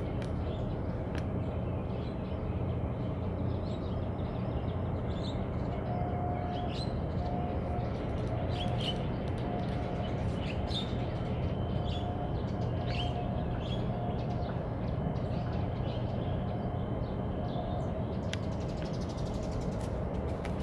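Small birds chirping in short, high, quick notes over a steady low rumble.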